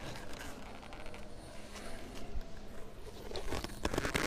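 Paper towel rubbing on a plastic resin bottle as it is wiped and handled, then a quicker, louder run of clicks and scrapes near the end.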